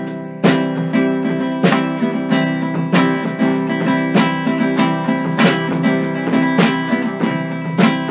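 Acoustic guitar strummed in a steady rhythm, with a strong stroke about every 0.6 seconds: the instrumental opening of the song, before any singing.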